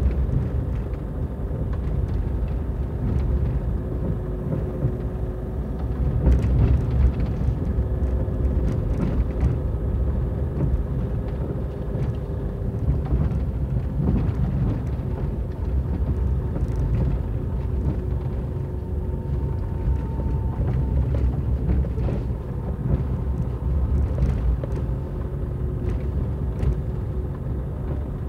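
Car driving on a gravel dirt road, heard from inside the cabin: a steady low rumble of tyres and engine, with scattered clicks and knocks.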